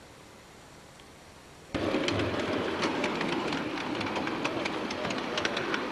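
Ride-on miniature railway train rolling along its track: a steady rumble with many irregular clicks and rattles. It starts abruptly about two seconds in, after a faint steady hum.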